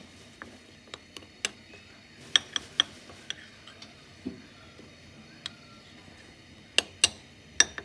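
Metal spoon stirring a dry flour mix in a bowl, clicking against the bowl's side at irregular moments, with a cluster of clicks in the first three seconds and a few more near the end.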